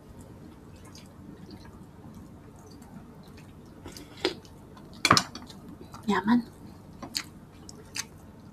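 Eating at a table: broth slurped from a glass cup and a spoon, with chewing and a few short clinks of spoon and dishes. The loudest slurp comes about five seconds in.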